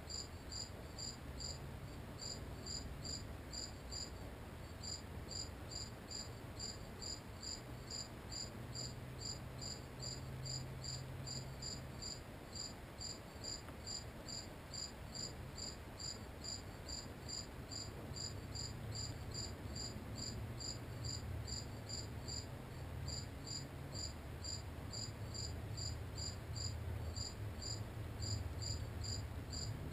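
A cricket chirping steadily in a fast, even rhythm of a few high-pitched chirps a second, pausing briefly now and then, over a low steady rumble.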